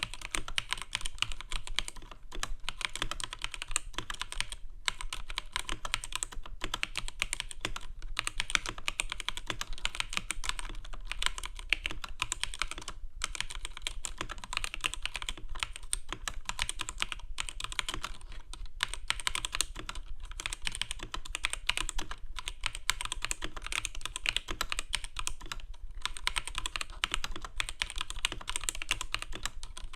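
Keys being typed on a keyboard at a fast, steady pace: a dense stream of sharp key clicks and clacks, with a couple of brief pauses.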